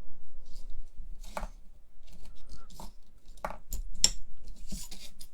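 ASMR ear-cleaning sounds: ear-cleaning tools scratching, rubbing and tapping close to the microphone in irregular strokes, the loudest about four seconds in.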